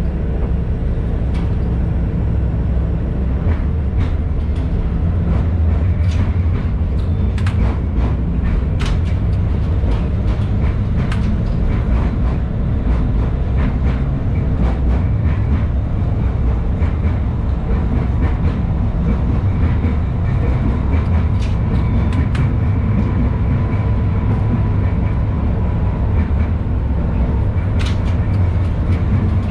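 LVS-86K articulated tram running along the track, heard from inside the car: a steady low rumble with scattered sharp clicks and knocks throughout. A faint steady whine joins about two-thirds of the way through.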